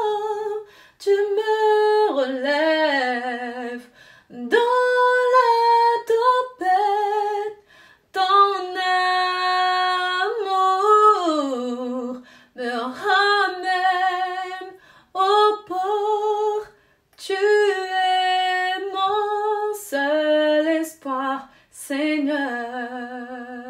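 A woman singing a gospel melody unaccompanied, holding long notes with vibrato in phrases separated by short breaths.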